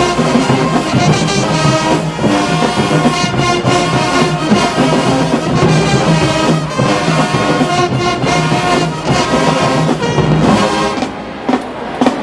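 HBCU marching band playing a tune with its brass to the fore, trombones and trumpets over drums. About 11 seconds in, the band drops back briefly.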